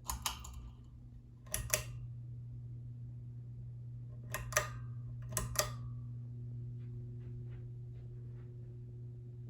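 Ceiling fan pull-chain switch clicked four times, each a quick double click, over a steady low hum from the fan that gets louder after the second pull.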